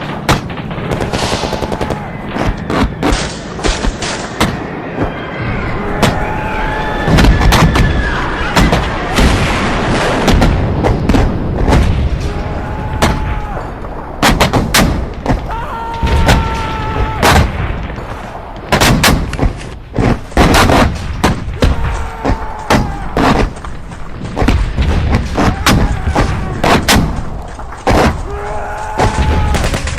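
War battlefield sound effect: gunshots cracking in irregular volleys over booming explosions and low rumble. Short held higher tones cut through every few seconds.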